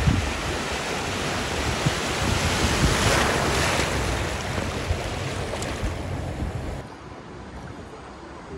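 Floodwater surging and splashing, with wind buffeting the microphone. The sound drops abruptly to a quieter wash of water about seven seconds in.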